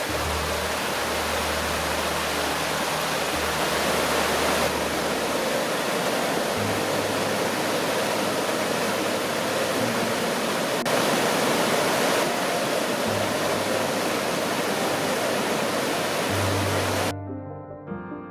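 Creek water rushing steadily and loudly where it pours into a river, with soft background music underneath. The water sound cuts off suddenly near the end, leaving the music.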